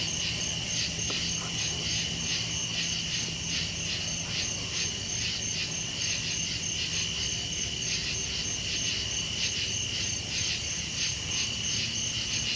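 Night chorus of insects: a steady high trill with a pulsing buzz about three times a second.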